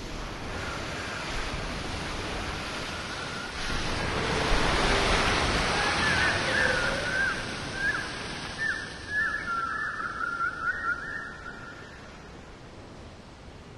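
Sea surf washing on the shore, swelling as a wave breaks about four seconds in and then easing off, with a run of short high chirps over it in the second half.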